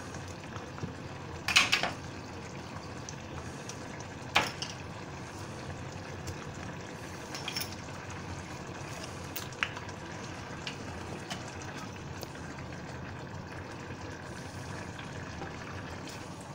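Creamy sauce simmering in a stainless saucepan as oysters are poached in it and stirred with a wooden spoon. A few sharp knocks of utensils against the pan cut through, the loudest about one and a half and four and a half seconds in.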